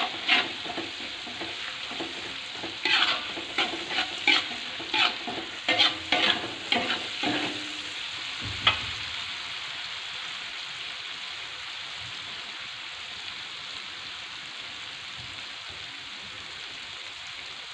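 Ground chili spice paste with shrimp paste sizzling in oil in a wok, while a metal spatula stirs it with sharp clinks and scrapes against the pan. The clinking stops about nine seconds in, leaving only the steady sizzle.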